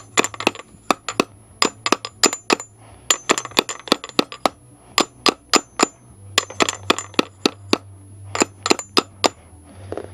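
Hammer tapping repeatedly on a seal-driver tube slid over a Yamaha Virago fork tube, driving a new fork seal down into the fork leg. The quick taps come in runs with short pauses, each a sharp knock with a brief metallic ring, and stop about nine seconds in.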